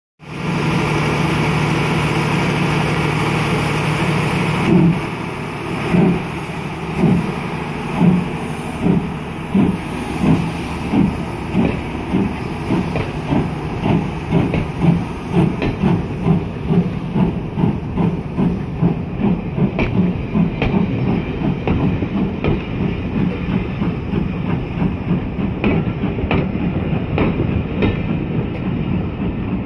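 LMS Ivatt Class 2MT 2-6-0 steam locomotive 46512 starting a train: a steady hiss of escaping steam for the first few seconds, then exhaust chuffs, slow at first and quickening, as it pulls away. In the second half the coaches roll past with wheels clicking over the rail joints.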